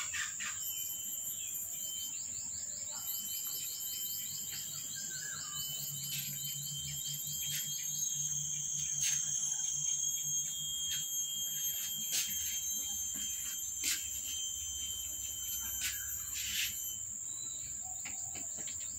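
Insects trilling steadily and high-pitched, with a faster pulsing chirp for a few seconds near the start and occasional soft clicks.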